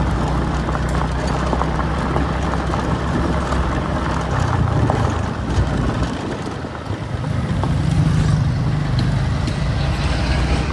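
Motorbike being ridden along a road: a steady low engine hum under an even rushing noise, the engine note shifting a little about halfway through and again later.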